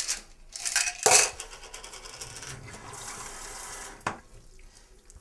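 Handling at a bathroom sink: small hard objects clinking and rubbing, with a loud knock about a second in. A short hiss of running tap water follows and stops with a sharp click about four seconds in.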